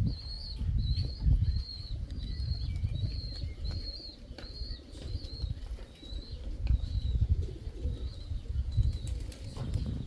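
Pigeons' wings flapping and fluttering, with a faint high chirp repeating about twice a second.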